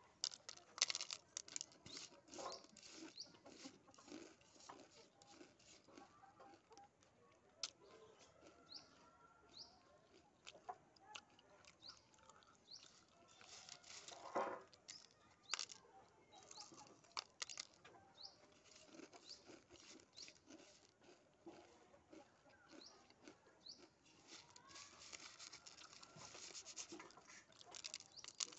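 Lay's potato chips being crunched and chewed, with fingers raking through the crisp pieces on a paper plate: quiet, irregular crackling and snapping with a few louder crunches.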